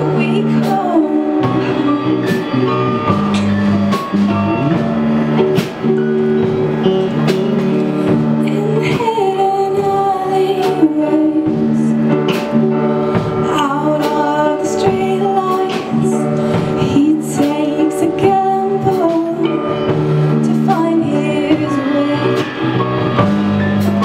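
Live band playing a song: a woman singing lead into a microphone over electric guitars, a drum kit and an upright piano.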